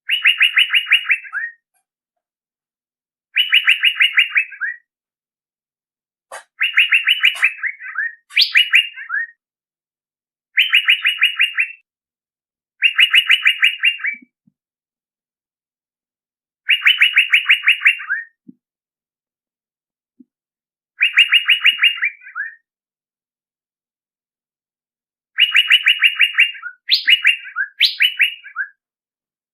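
Male Asian fairy-bluebird calling: bursts of rapid, evenly repeated notes, each about a second and a half long, coming every few seconds, with some bursts ending in a few sharp rising notes.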